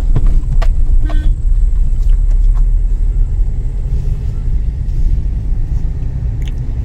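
Low, steady rumble of a manual car's engine and tyres heard inside the cabin as it pulls away in first gear, clutch being let out and accelerator pressed. A few faint clicks in the first second.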